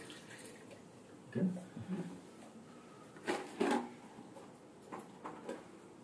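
A few faint knocks and clinks as a plastic funnel and mug are handled in the dishwasher tub while water is poured into the empty salt reservoir.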